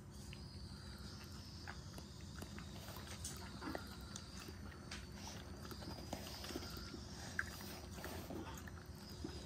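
Shetland sheepdog licking and smacking its lips as it takes liquid from a syringe: faint, scattered small clicks over a steady low hum.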